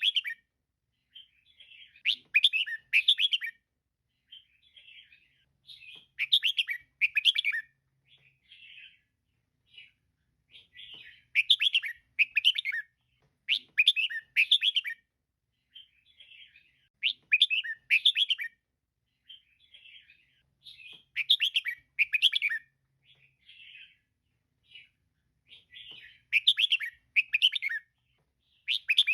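Female red-whiskered bulbul calling: loud clusters of quick, bright chirped notes every two to three seconds, with softer chattering notes in between.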